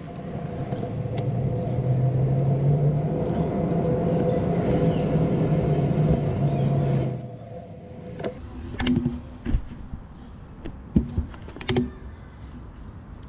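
A motor running with a steady low hum, growing louder over the first two seconds and then stopping abruptly about seven seconds in; a few sharp clicks follow.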